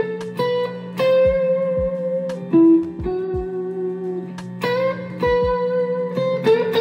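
Fender '62 reissue Stratocaster electric guitar playing a slow single-note lead phrase: each picked note rings, then is cut short by a mute before the next, giving loose, unhurried phrasing somewhere between staccato and legato.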